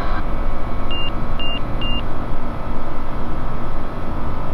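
Bristell light aircraft's engine and propeller running at full takeoff power, heard inside the cockpit as a loud, steady drone during the takeoff roll. Three short electronic beeps sound about a second in.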